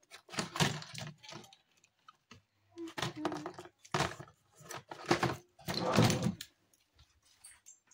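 Rummaging: a string of short knocks, clicks and rustles as things are picked up and moved around while someone looks for a fresh roll of sellotape.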